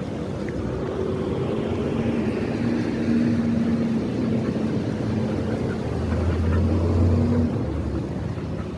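Street traffic: a motor vehicle's engine hum and tyre noise building up as it passes, loudest about seven seconds in.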